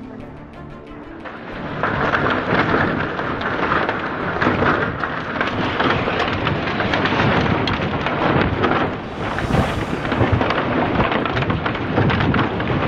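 Tornado wind blasting through a yard, with a dense, constant clatter of debris and objects striking and rattling. The din comes in loud about a second and a half in and stays loud.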